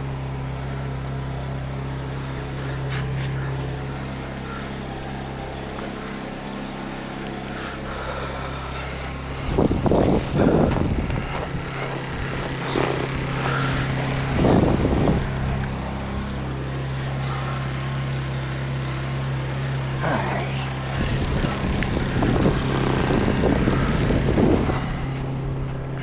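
Portable generator running steadily at high idle, a constant engine hum. Three louder bursts of close rustling and knocking handling noise come over it, about ten seconds in, around fifteen seconds, and through most of the last five seconds.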